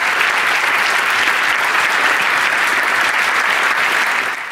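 Audience applauding, a steady round of clapping that fades out near the end.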